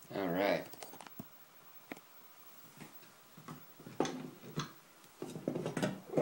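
Scattered light clicks and taps of metal as an opened padlock is handled, busier about four seconds in.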